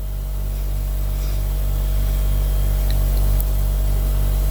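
A steady low hum with a faint hiss over it and no voice.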